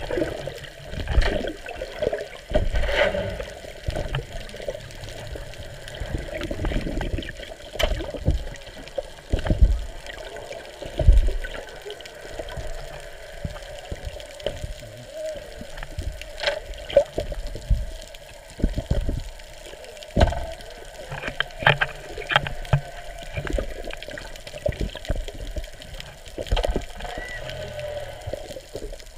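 Muffled water sloshing and bubbling heard from under the surface, with irregular low thumps and a few clicks.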